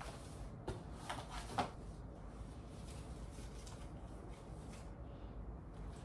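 Faint rustling and a few soft knocks from someone moving about and changing clothes out of view, with one sharper tap about one and a half seconds in.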